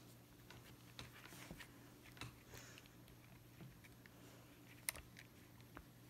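Faint scattered clicks and light rubbing of hands handling a leather buckle guard strap around a metal cinch buckle, over a low steady hum of room tone; one sharper click comes near the end.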